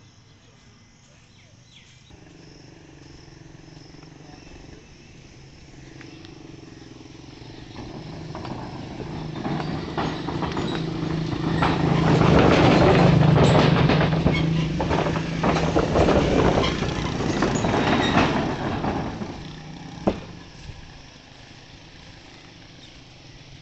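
Motor rickshaw driving across a steel truss bridge, its engine growing louder as it approaches, passing close with a rattling clatter from about ten to nineteen seconds in, then fading away. A single sharp knock follows near the end.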